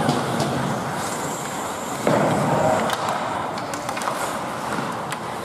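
Ice hockey play in an indoor rink: skate blades scraping on the ice and sharp clicks of sticks on the puck, with a louder rush of noise about two seconds in.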